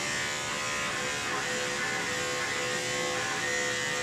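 Andis five-speed electric dog clipper running with a steady hum as it works through the coat.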